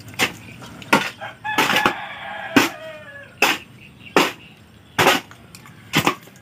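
A rooster crows once, starting about a second and a half in and trailing down in pitch. Under it, sharp scraping strokes repeat about once every 0.8 s as wet cement mix is worked in a basin.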